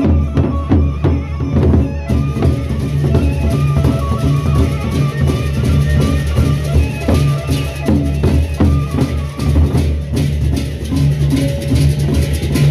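Gendang beleq ensemble playing: large Sasak barrel drums beaten by hand in quick, dense strokes over low sustained tones, with a high hiss joining about two seconds in.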